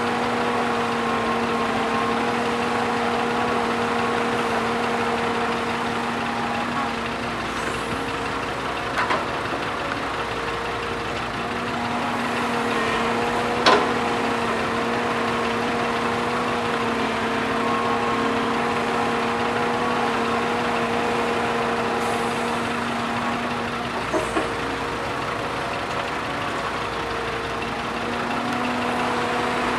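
Diesel engine of a Kobelco hydraulic excavator running at a steady pitch while it digs. A few sharp knocks are heard, the loudest about fourteen seconds in.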